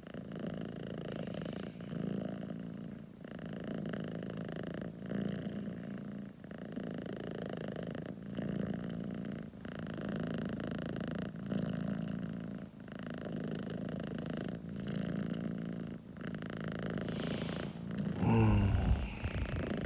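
Domestic cat purring loudly and continuously, a rough, snore-like purr that swells and fades with each breath about every one and a half seconds. Near the end a brief, louder, wavering call breaks in.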